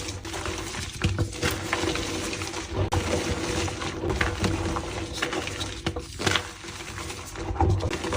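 Reformed gym chalk being crushed and crumbled: a dense, irregular run of dry crackles and soft crunches.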